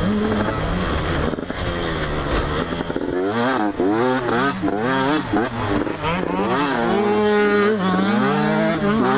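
A 2004 KTM 125 SX's two-stroke engine under racing throttle, revving up and falling back again and again as the rider shifts and works the throttle. There is a quick run of rises and drops from about three seconds in, then a longer high stretch before it falls and climbs again near the end.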